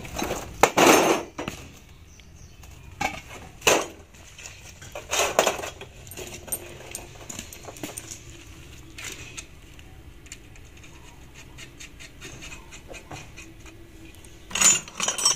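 Scattered metallic clinks and clanks of steel parts on a truck differential carrier as the locking bolts for the bearing caps are fitted by hand, with a louder clank about a second in and a cluster of clinks near the end.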